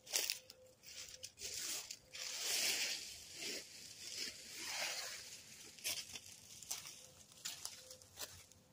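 Irregular rustling and crackling with scattered sharp snaps, the loudest stretch of rustling about two and a half seconds in.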